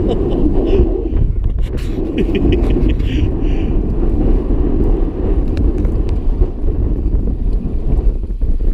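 Steady low rumble of wind and sea noise on an open fishing boat.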